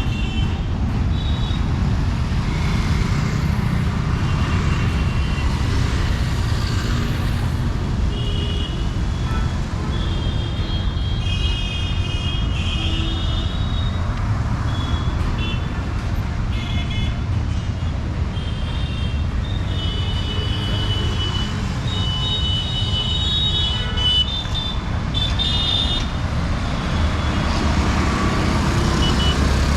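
Busy street traffic: a continuous rumble of passing vehicles and engines. Short high-pitched tones sound again and again over it.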